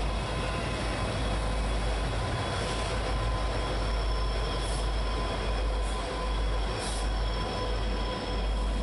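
Norfolk Southern helper diesel locomotives running light past at close range: a steady low engine rumble with wheels squealing on the rails in thin steady tones.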